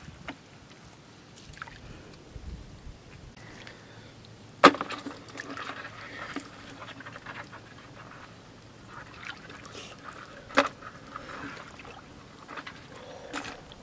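Shallow water sloshing and trickling around feet wading in a rock pool, with scattered small clicks and two sharp knocks, about five and eleven seconds in.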